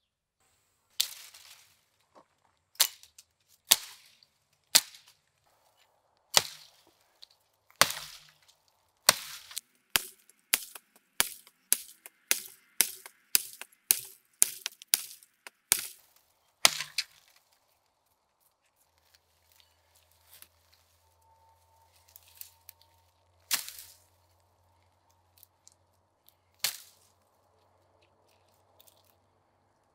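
Restored antique Koser sickle blade chopping into a dead branch: a string of sharp strikes, quickening to about two a second, then thinning out to a few lighter cuts through green brush in the second half.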